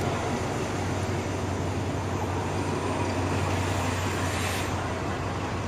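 Diesel-hauled passenger train on the tracks alongside the platform: a steady noise of the train with a low, even engine hum underneath.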